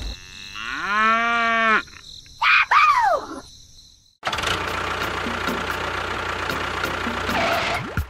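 A cow mooing once in a long call, followed by two short higher calls. From about four seconds in comes a steady hissing noise.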